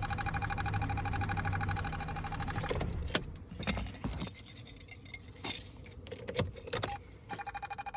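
A steady, rapidly pulsing electronic tone stops about a third of the way in. A few seconds of separate clicks and light knocks follow, like car keys being handled, and then the tone comes back near the end.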